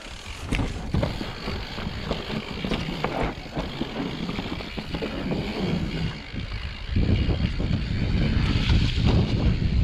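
Enduro mountain bike riding down a dirt and rock trail: tyres rolling over rough ground with frequent knocks and rattles from the bike. Wind rush on the microphone grows louder about seven seconds in.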